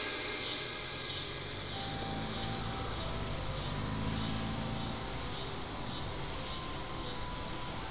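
Evening outdoor ambience: insects chirring in a steady high hiss that pulses about twice a second, over a faint low rumble.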